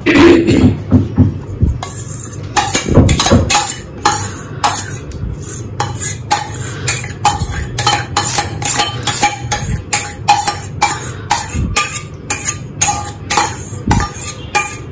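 A spoon scraping the inside of a metal mixing bowl over and over, about two strokes a second, working thick lemon pie filling out of the bowl, with a few dull knocks from the bowl in the first seconds.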